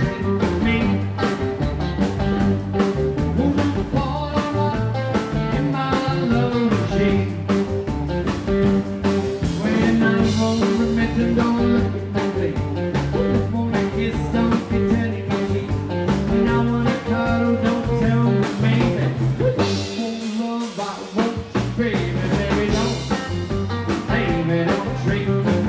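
Live rockabilly band playing: Telecaster-style electric guitar, strummed acoustic guitar, upright double bass and drum kit. Near the end the bass and drums drop out for about a second, then the band comes back in.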